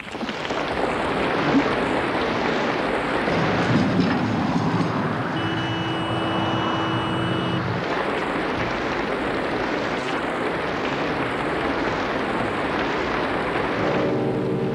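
Audience applauding, a dense steady clapping that starts abruptly as the music ends.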